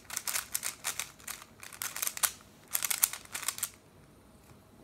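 A plastic puzzle cube being twisted fast by hand: bursts of quick clicking turns that stop about three and a half seconds in.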